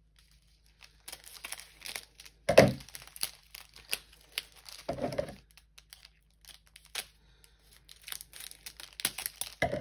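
Clear plastic packaging crinkling, rustling and tearing as a package is opened by hand, with scattered small clicks. Two louder short knocks come about two and a half and five seconds in.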